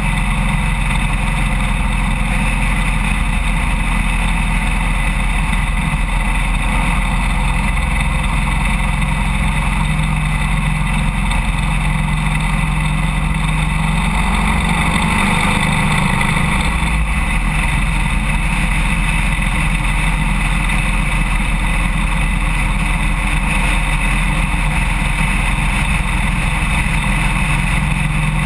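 Harley-Davidson Road King's V-twin engine running steadily at cruising speed, mixed with steady wind and road noise on the fender-mounted camera.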